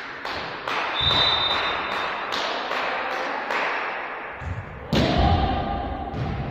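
Volleyball being played in a sports hall: a string of sharp ball hits and thuds that echo in the room, with a loud hit about five seconds in followed by a held shout.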